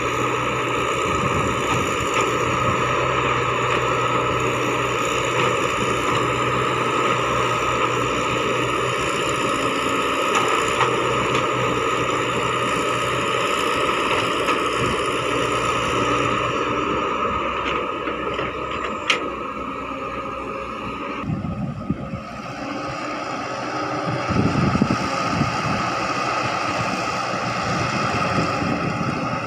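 Caterpillar hydraulic crawler excavator's diesel engine running steadily under load as the machine works, with a steady high-pitched tone over the engine noise. About two-thirds of the way through, the sound's tone changes as the machine swings its load toward the truck.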